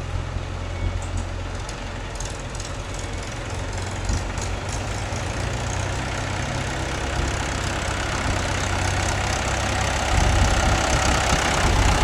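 Heavy diesel engine of a working machine running steadily, growing louder over the last few seconds.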